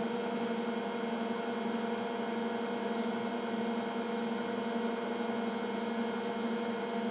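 Steady machine hum with an even hiss and a few constant tones, unchanging throughout.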